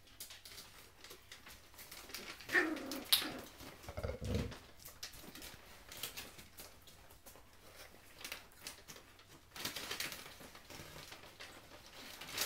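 Belgian Shepherd puppies playing and scuffling together, with a brief puppy vocal sound about two and a half seconds in and small scrabbling clicks and rustles of their movement on the rug.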